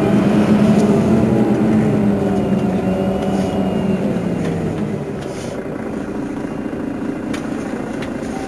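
Mercedes-Benz Citaro city bus's diesel engine running while the bus stands still. Its note eases down slightly and gets quieter about halfway through.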